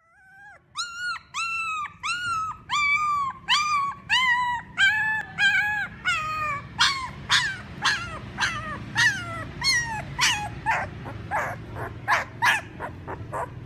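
A puppy crying in a steady series of high-pitched calls, about two a second, slowly falling in pitch. About halfway through they turn into shorter, sharper yelps that drop steeply in pitch and grow fainter near the end.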